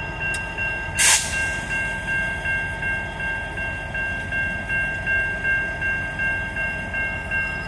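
Grade-crossing warning bell ringing in a quick steady rhythm over the low running rumble of a diesel locomotive at the crossing. A single sharp bang about a second in is the loudest sound.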